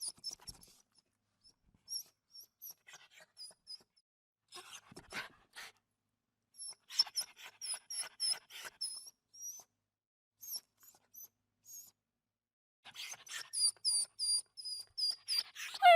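Dog whimpering in runs of short, very high-pitched squeaks, with pauses between the runs and bursts of noise among them.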